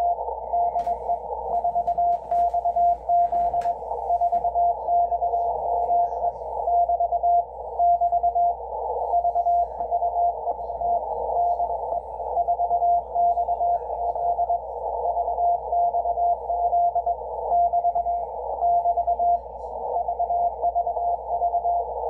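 Morse code (CW) from maritime station 4XZ on 6607 kHz, heard through a Yaesu FTdx10 shortwave transceiver: a steady tone keyed in dots and dashes, sending the repeated 'VVV DE 4XZ' marker. Band static hisses around the tone, narrowed by the receiver's 500 Hz filter.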